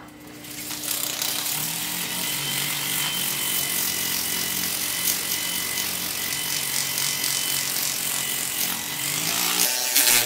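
Handheld rotary tool running steadily with an abrasive bit grinding and polishing the bowl of a silver spoon. It starts abruptly at the beginning and its motor hum drops out shortly before the end.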